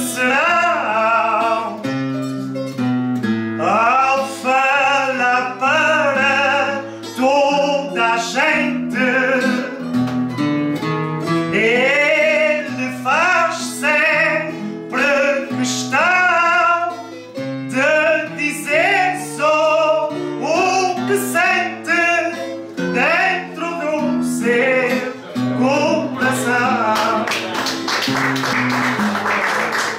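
Live folk music: a solo voice singing with a strong vibrato over plucked-string accompaniment on acoustic guitars.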